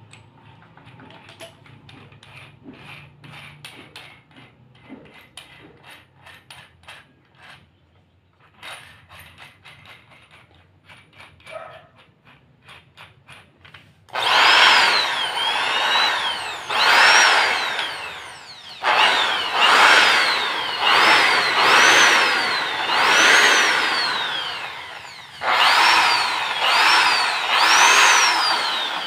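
Bosch GSB 550 corded impact drill run with no load in short trigger pulls, about eight times from around fourteen seconds in; on each pull the motor whine climbs quickly, then winds down when the trigger is released. Before that, light clicks and rattles from handling the drill.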